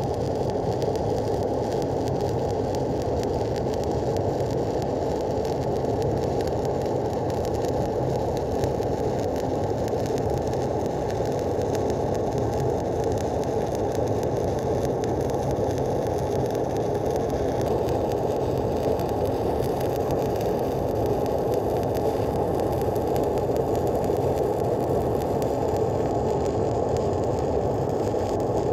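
Stick (shielded metal arc) welding arc burning overhead with a low-hydrogen electrode while a cap-pass stringer bead is run. The sound is steady and unbroken, the sign of one continuous bead laid without a restart.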